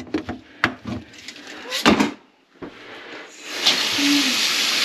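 A few scattered knocks and clatters, then water starts running steadily about three and a half seconds in.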